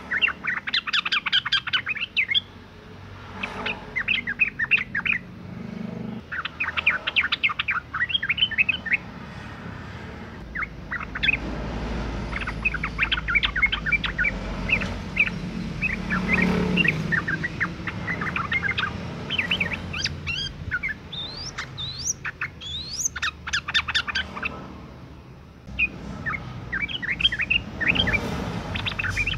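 Female yellow-vented bulbul (trucukan) in breeding condition giving its call: phrases of quick, chattering chirps a second or two long, repeated with short pauses. A low rumble runs underneath, louder in the middle.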